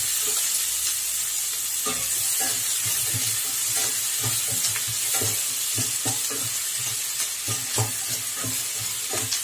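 Chopped onions sizzling in hot coconut oil in a stainless steel pot. A wooden spatula stirs them with repeated scrapes and taps against the pot.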